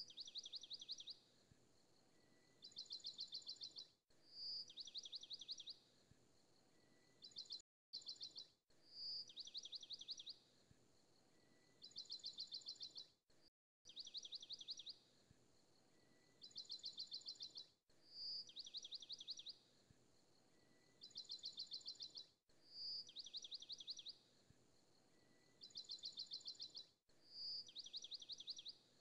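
High bird-like chirping repeated very regularly. Each phrase is a short whistled note followed by quick trills of rapid chirps, and the phrase comes again about every four and a half seconds.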